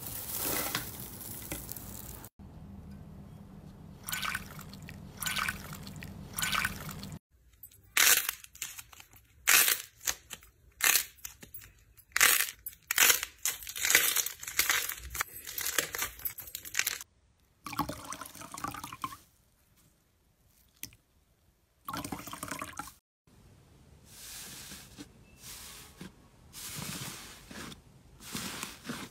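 Slime handling sounds in short clips: metallic foil crinkling as a potato masher presses it into clear slime at the start, then dense sharp crackling and popping as a stiff blue slime is squeezed and torn by hand. Near the end there is softer squishing as a fluffy purple slime is squeezed.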